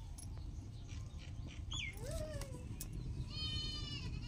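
Goat bleating: a short call about two seconds in, then a longer, higher-pitched one near the end.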